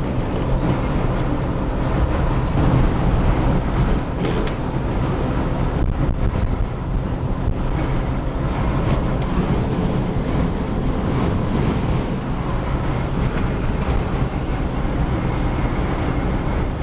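Steady road and wind noise inside a smart fortwo's cabin while driving at highway speed, with a low engine drone underneath.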